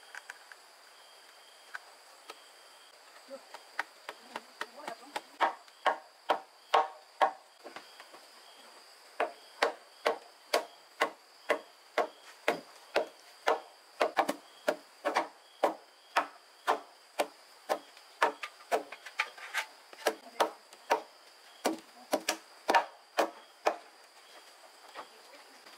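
A hand tool striking wood over and over, about two blows a second, with one short pause early on. Insects shrill steadily underneath.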